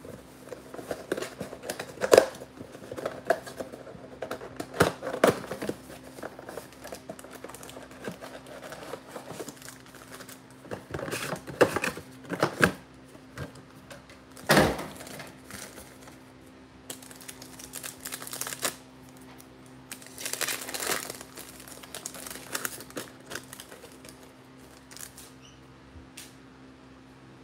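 Trading-card mega box and its wrapped packs being handled and opened: cardboard and plastic wrappers crinkling and tearing, with sharp clicks and rustles in irregular bursts. A steady low hum runs underneath.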